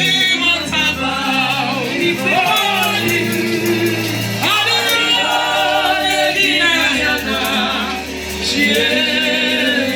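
Live gospel worship music: singing over instrumental accompaniment with sustained low bass notes.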